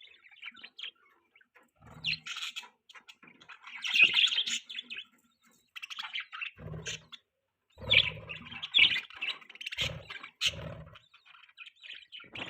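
Budgerigars chirping and chattering in short irregular bursts with brief pauses between, along with a few low thuds.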